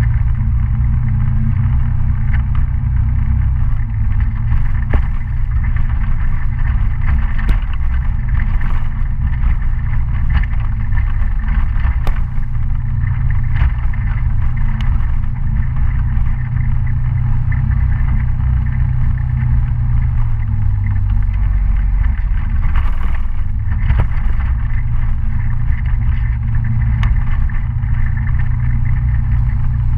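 Kymco Citycom S 300i scooter's single-cylinder engine running steadily under way, the engine note easing off and picking up again a few times, with scattered short knocks and rattles from the dirt road.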